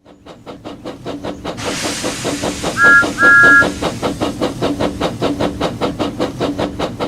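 Steam locomotive chuffing at an even beat of about five puffs a second, with a hiss of steam starting about a second and a half in. Two whistle blasts sound a little before the middle, the second longer, and are the loudest part.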